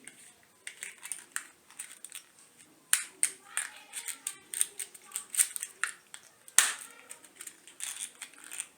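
Irregular clicks, knocks and rattles of a tripod stand and its phone holder being handled and adjusted, with two louder knocks about three seconds and six and a half seconds in.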